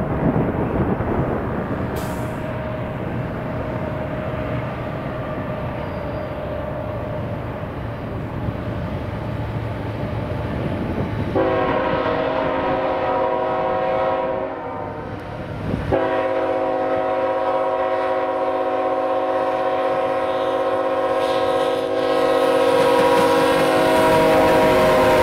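Freight train approaching with a steady low rumble, led by a CSX GE ET44AC-H locomotive. About 11 seconds in, its multi-chime air horn sounds a chord for about three seconds. After a short break, a second, longer blast starts about 16 seconds in and holds as the locomotive comes close. This is the horn warning for the grade crossings.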